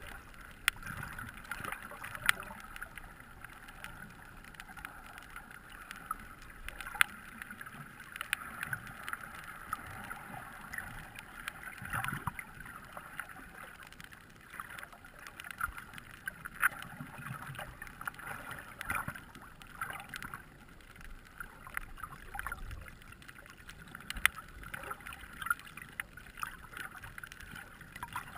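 Muffled underwater sound picked up by a submerged action camera: a steady hiss of water with many scattered sharp clicks and small knocks.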